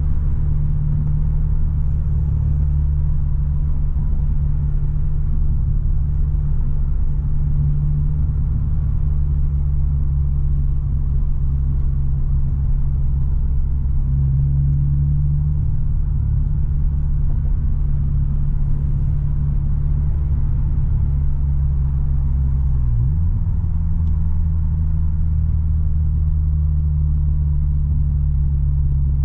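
Subaru BRZ's flat-four boxer engine with a loud, deep-toned exhaust droning steadily at a light-throttle cruise, heard from inside the cabin. Near the end the engine note changes pitch abruptly.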